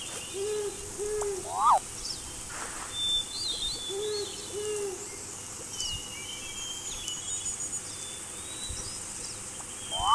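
Owl hooting: two pairs of short hoots, over a background of small birds chirping. A short, loud rising call stands out about one and a half seconds in.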